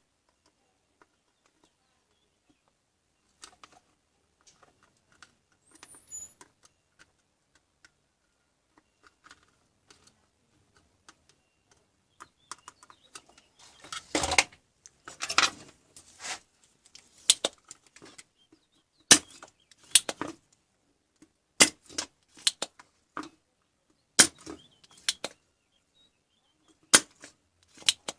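Scattered sharp clicks and knocks of hand work on a monitor's parts. They are sparse and faint at first, grow denser and louder about halfway, and end in a run of loud snaps a second or two apart.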